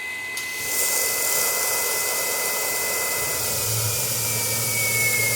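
CNC milling machine running: a steady high spindle whine, joined about half a second in by a click and then the loud, steady hiss of the coolant mister blowing mist at the cutter for chip clearing. A low hum comes in near the end, and the whine sinks slightly in pitch.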